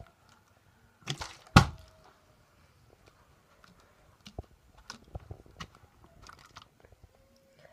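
Partly filled plastic water bottle flipped and landing on carpet: a double thud about a second and a half in, the second hit the louder. After it come small clicks and crinkles of the plastic bottle being picked up and handled.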